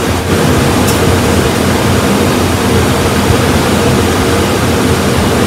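1989 Chevy Caprice engine idling steadily with the hood open, left running for a transmission fluid check. It gives an even running sound with one steady tone through it.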